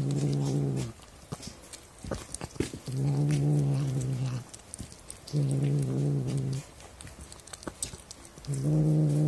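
Domestic cat growling low while eating a mouse: four drawn-out growls of a second or more each, held on one steady low pitch and repeating about every two and a half seconds.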